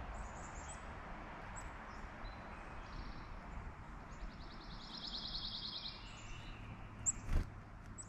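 A small songbird's rapid trill of evenly spaced high notes, lasting about three seconds in the middle, with a few short high chirps around it, over steady outdoor background noise. A single sharp knock sounds near the end.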